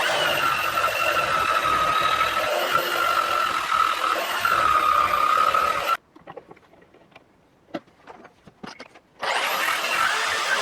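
Small electric rotary power tool running with a steady whine. It stops about six seconds in, a few light clicks and taps follow, and it spins up again near the end.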